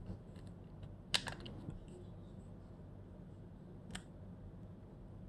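Push buttons on BSIDE ESR02 Pro component testers clicking as they are pressed: a short cluster of sharp clicks about a second in, then a single click about four seconds in, over a faint steady low hum.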